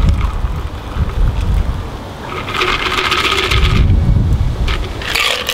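A shaken cocktail strained from a metal shaker through a spring-coil strainer into a glass: creamy liquid pouring, loudest about two to four seconds in, with ice shifting in the shaker and a short rattle near the end, over a steady low rumble.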